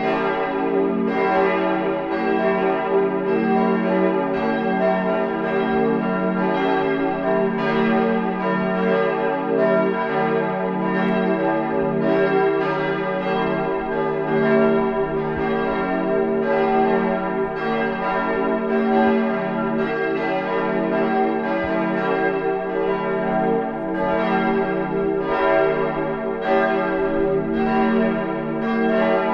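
Full peal of the Pauluskirche's church bells, all bells swinging and ringing together to call to the Sunday service. Strokes from the different bells overlap in an uneven pattern, each tone ringing on into the next, so the ringing is dense and continuous at a steady level.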